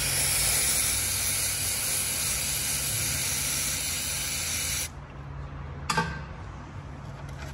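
Aerosol cleaner spraying in a steady hiss onto an oily engine sump and drain plug, cutting off about five seconds in. A single sharp click follows about a second later.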